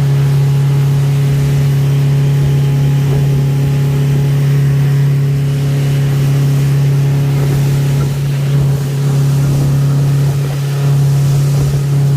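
Motorboat engine running steadily at cruising speed, a constant low drone, over the rush and hiss of spray along the hull.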